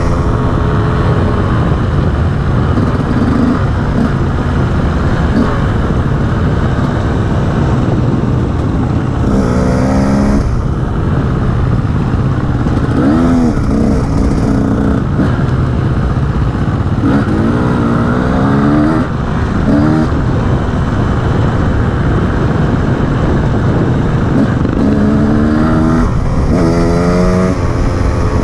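Enduro motorcycle being ridden off-road, its engine revving up in pitch several times under acceleration over a constant loud low rumble.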